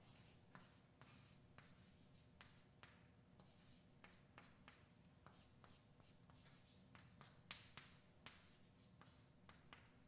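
Chalk writing on a blackboard, faint: a string of short taps and scrapes as each letter is stroked out.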